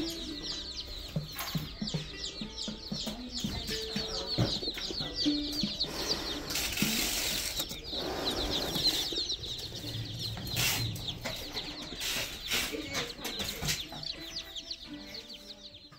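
A crowd of baby chicks peeping nonstop inside cardboard poultry shipping boxes, in a dense chorus of short, high, falling peeps. There are several bursts of scraping, rustling noise in the middle, as the boxes are handled.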